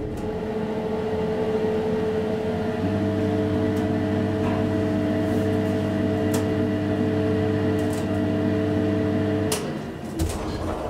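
Hissmontering hydraulic elevator's pump unit running during a ride, a steady hum of several tones, with a deeper hum joining about three seconds in. The hum cuts off suddenly near the end, followed by a sharp knock.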